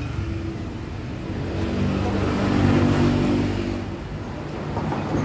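A motor vehicle's engine passing close by on a street, growing louder to a peak about three seconds in and then fading.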